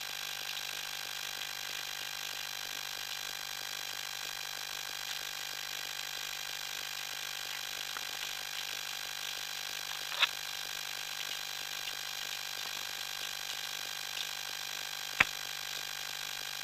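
Underwater recording: a steady hiss with faint scattered clicks, a sharp click about ten seconds in, and a louder, sharper snap about fifteen seconds in.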